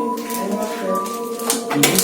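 Background music with held, droning tones and light percussive hits.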